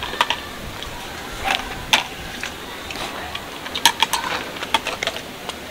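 Irregular light clinks and knocks of objects being handled, about a dozen, over a steady background hiss.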